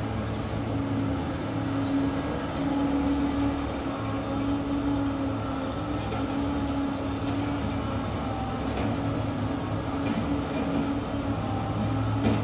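Low, steady diesel engine drone of a working Volvo crawler excavator, heard from well above the site, its hum coming and going in stretches of a second or two as the machine digs, with a few faint clanks.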